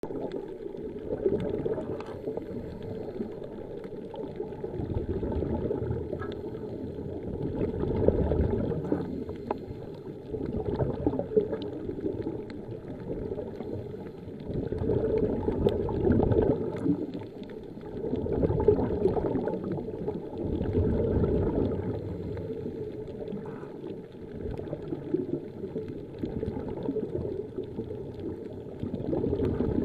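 Scuba regulator breathing heard underwater: exhaust bubbles gurgling, swelling and fading every few seconds with each breath.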